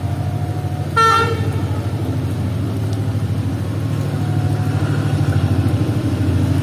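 A train horn gives one short toot about a second in, over a steady low diesel engine rumble that grows slowly louder as the train approaches.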